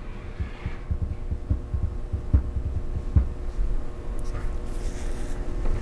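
Steady low hum with faint, irregular low thumps, and two light clicks a little past the middle, as of a hand resting on and tapping a laptop touchpad.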